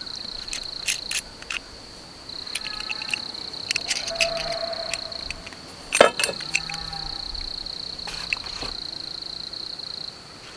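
A steady high insect trill, broken off for about a second near the start, over scattered light clicks and clinks of small hardware being handled, with one sharper knock about six seconds in.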